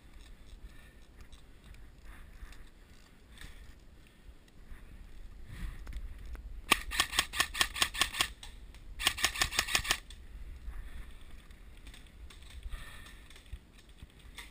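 Airsoft gun firing two rapid automatic bursts about two-thirds of the way through: a string of sharp cracks lasting about a second and a half, then a second string of about a second.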